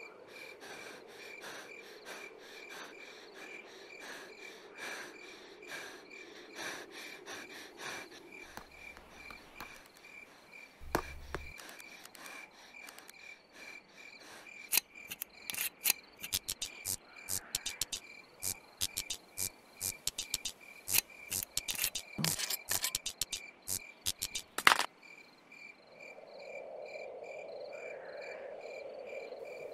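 Crickets chirping steadily in a night-time field. In the middle stretch come many sharp clicks and rattles as a metal handheld torch is handled, with the loudest click near the end.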